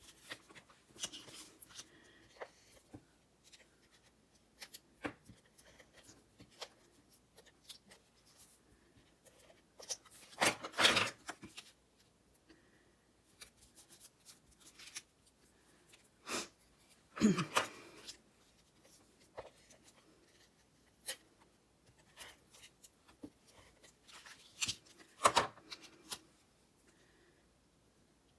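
Cardstock pieces being handled and layered by hand: scattered light taps, clicks and paper rustles, with three louder rustling bursts spread through.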